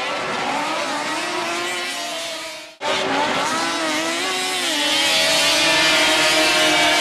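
Racing snowmobiles' two-stroke engines running at high revs, their pitch wavering up and down. The sound cuts out abruptly nearly three seconds in and resumes, then holds a steadier high note.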